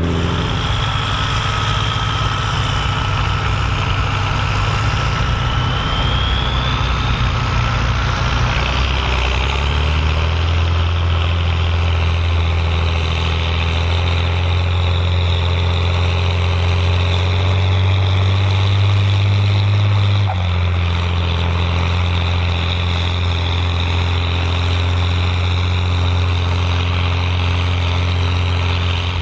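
Volvo BM814 tractor's diesel engine running steadily under load while pulling a six-furrow plough, with a thin high whine over it for the first several seconds. The engine note shifts lower about a third of the way in and changes again about two-thirds of the way through.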